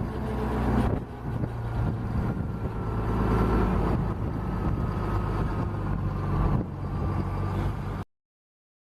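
Wheel dozer's diesel engine running steadily, with a faint high whine over it. The sound shifts about a second in and cuts off suddenly near the end.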